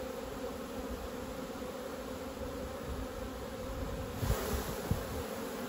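A honeybee colony buzzing steadily around an opened hive. About four seconds in there are a few short knocks and a scrape as a wooden frame is pried up and lifted out of the box.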